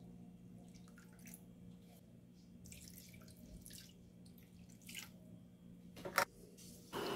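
Water trickling and dripping from a plastic measuring cup into a mixing bowl, in small scattered splashes. A sharp double clack about six seconds in is the loudest sound.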